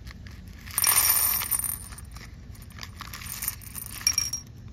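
A mix of glass and metal beads poured out of a plastic bag into a clear bowl, clattering and clinking against the bowl and each other. The loudest rush comes about a second in, with smaller spills near the end.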